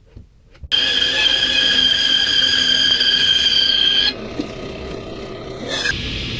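Bandsaw cutting rough-sawn walnut. It starts suddenly, gives a loud steady high-pitched squealing whine, and cuts off abruptly about four seconds in. Near the end a table saw runs with a steady, noisier whir.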